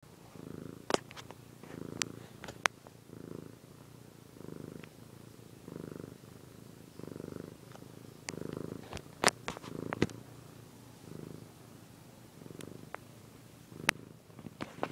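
Domestic cat purring close to the microphone, in a steady rise and fall about once every second and a bit. Several sharp clicks stand out over the purr.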